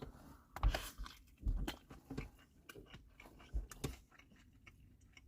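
Close chewing of a mouthful of fish taco, with irregular wet clicks and soft low thumps from the mouth.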